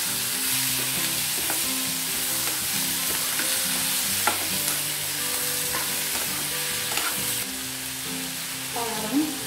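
Chopped tomatoes and onions sizzling in hot oil in a frying pan while a metal spatula stirs them, with occasional sharp clicks of the spatula against the pan. The stirring stops near the end, leaving the sizzle.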